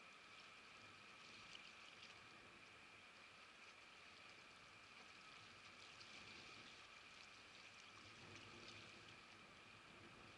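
Near silence: faint steady shoreline ambience with faint lapping water.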